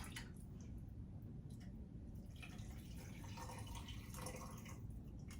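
Barbecue beef broth being poured into quart canning jars of pork ribs: a faint splashing, trickling pour for about two and a half seconds in the middle.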